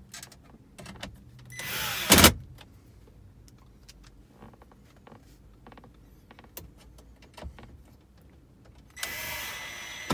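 Cordless electric screwdriver driving the two screws that hold the dashboard screen bracket: a short motor whir about two seconds in that ends in a brief loud burst, then a longer whir near the end ending the same way. Light clicks of hands and tool on plastic trim between.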